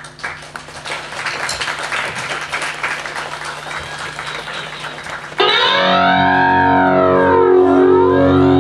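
Live rock band on stage: a noisy stretch with scattered clicks, then about five seconds in a loud, sustained distorted electric guitar sound comes in, its tone sweeping up and down through an effects unit.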